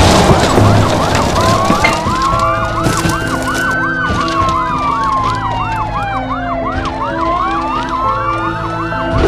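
Emergency-vehicle sirens sounding together: a slow wail that rises and falls over about three seconds, layered with a fast yelp of about three to four sweeps a second.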